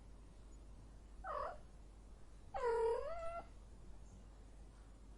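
Female cat in heat calling twice. A short meow comes about a second in, then a longer, louder call that dips and then rises in pitch.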